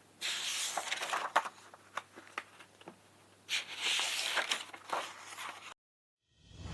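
Crinkling, rustling handling noise with scattered sharp clicks in two spells, over a faint steady low hum.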